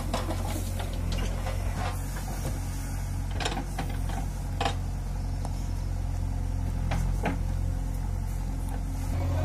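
Diesel engine of a JCB 3DX backhoe loader running steadily under load, with several short sharp knocks as soil drops into the steel tractor trolley and the bucket and arm work.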